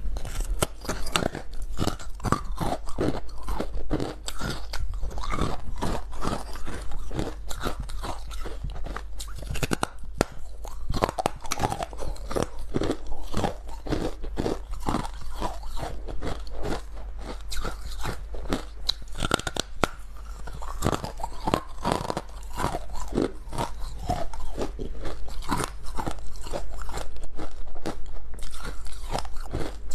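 Ice being bitten and chewed close to the microphone: dense, continuous crunching, several cracks a second.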